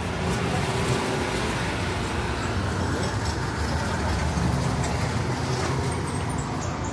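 Road traffic: a motor vehicle's engine running with a steady low rumble.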